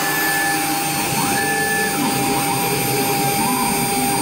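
CNC router running a job: the spindle gives a steady whine and hiss. Twice in the first two seconds a higher tone rises, holds and drops back as the axis motors drive the gantry.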